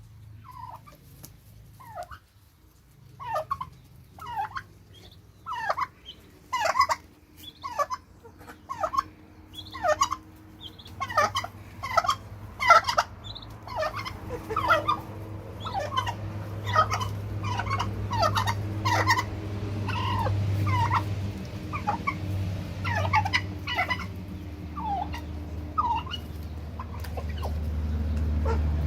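Flock of turkeys gobbling and calling: many short, separate downward-sweeping calls, about one to two a second, from about two seconds in. A low rumble builds underneath toward the end.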